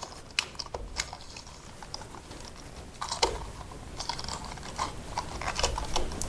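Irregular small clicks and scrapes of a metal-framed wall socket insert and its wires being worked by hand into a flush-mounted wall box.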